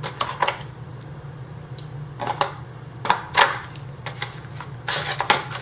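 Small hardware and its plastic packaging being handled: the kit's screwdriver and drill bit click and rattle, with rustling, in a dozen or so uneven sharp clicks, thickest near the end. A steady low hum runs underneath.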